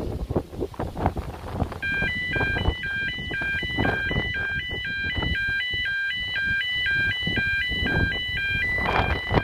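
Two-tone electronic warning sounder (e2s alarm) at a request footpath level crossing. It starts about two seconds in and steps between a high and a low tone about twice a second. It sounds after the crossing's request button is pressed, while the gates stay locked awaiting release by the signaller. Wind buffets the microphone underneath.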